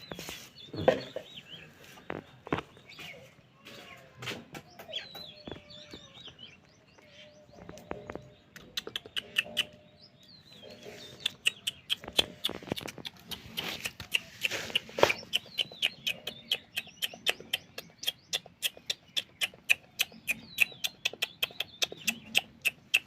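Pet parrot chirping and making short calls, mixed with sharp clicks that turn into a fast, fairly even ticking of several a second through the second half.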